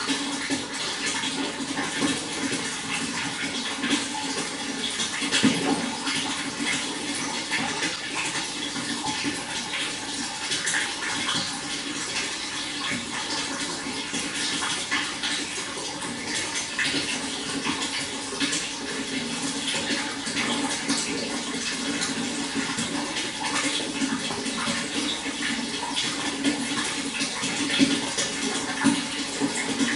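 Running water splashing and trickling steadily, with small irregular splashes.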